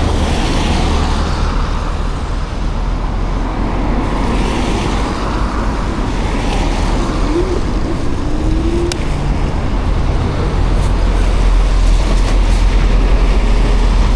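Road traffic noise heard while riding, with steady wind rumble on the microphone. A faint short rising tone comes about halfway through.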